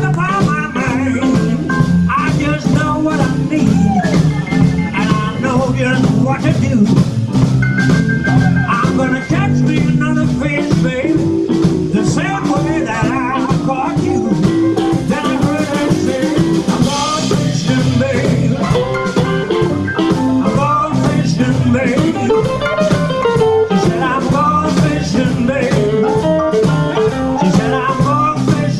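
Live blues band playing: electric guitar, double bass and drums, with a man singing.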